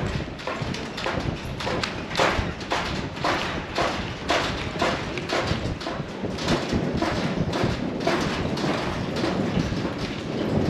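Footsteps on a hard surface, an even walking pace of about two steps a second.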